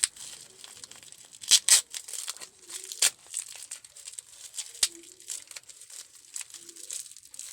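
Parcel packaging crinkling and crackling as it is handled and unwrapped, in irregular crackles, the sharpest about one and a half and three seconds in.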